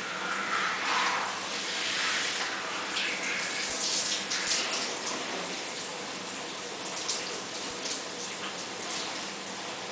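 Water spraying from a handheld shower head, splashing over wet clothing and into the shower tray. The spray is louder and more uneven in the first half, then runs steadier.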